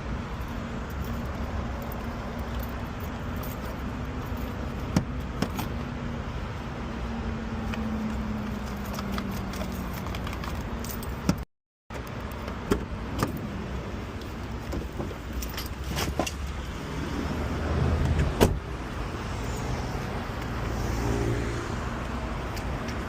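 Car engine running steadily, with scattered clicks and knocks over it. There is a brief dropout about halfway through.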